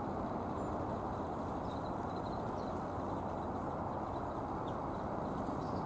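Steady low background rumble of distant city traffic, with a few faint, short, high bird chirps: a little cluster about two seconds in, one more a little later, and another near the end.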